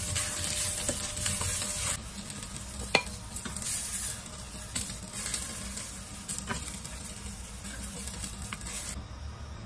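Shiitake mushrooms, ginger, garlic and spring onion sizzling in hot oil in a stainless steel pot while a ladle stirs and scoops them. The sizzle is loudest for the first two seconds and then fainter, with several clinks of the ladle on the pot, the sharpest about three seconds in.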